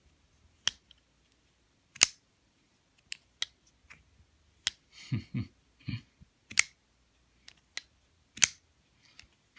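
Rick Hinderer XM18 folding knife being flipped open and closed repeatedly, making a series of sharp metallic clicks and snaps at uneven intervals as the blade swings out, locks and folds shut. The pivot has been loosened a little so that it flips super smooth.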